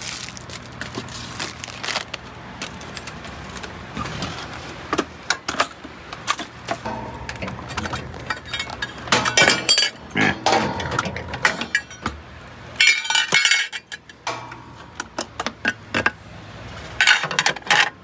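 Small metal pill organizer being handled and slid apart: repeated light metallic clinks, clicks and rattles, bunching into louder clusters about nine seconds in and again near the end, over a steady low hum.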